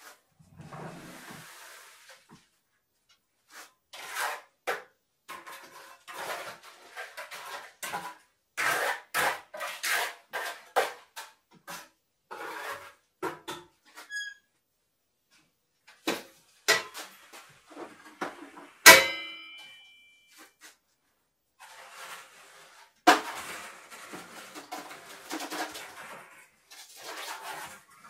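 Irregular scraping and knocking as concrete is worked out of a stopped concrete mixer's steel drum. About two-thirds of the way in comes one loud metallic clang that rings briefly, and a few seconds later another sharp knock.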